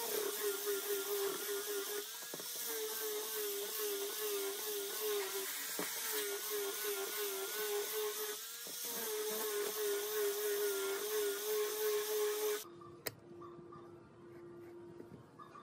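Handheld angle grinder with a sanding pad running against a wooden box, sanding it: a steady whine over a hiss, its pitch wavering slightly as the pad presses on the wood. About twelve and a half seconds in it cuts off abruptly, leaving a faint steady hum and a single click.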